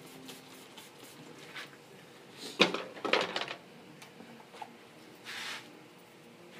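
Haircutting tools and objects being handled on a small table: a cluster of sharp clattering knocks about two and a half to three and a half seconds in, then a short hiss about five seconds in.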